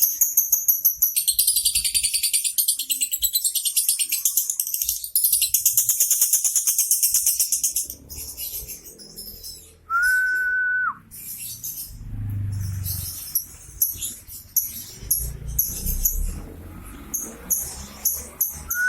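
Lovebird chattering in long, very rapid, high-pitched trills, the continuous 'ngekek' song, with shorter runs in the second half. About ten seconds in, a single steady whistle note is held for about a second, and low rumbling sits underneath for a few seconds after it.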